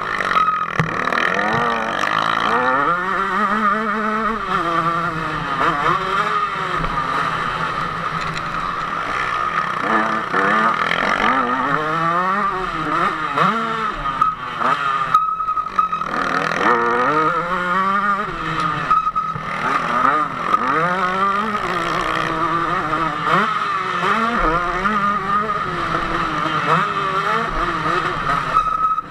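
KTM 150 SX single-cylinder two-stroke motocross engine racing, its revs climbing and dropping over and over through gear changes and corners, heard from on board the bike.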